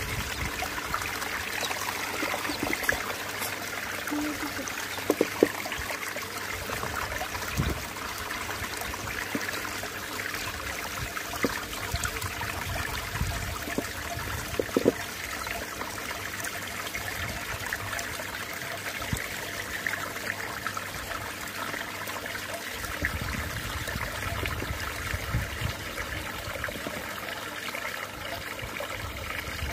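Water swirling and sloshing in a plastic tub as a hand stirs it round into a whirlpool, with a steady watery rush and a few short, sharper splashes.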